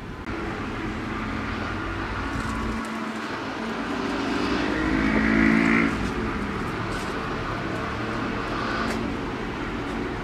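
A motor vehicle's engine running, growing louder to a peak about five and a half seconds in and then dropping back.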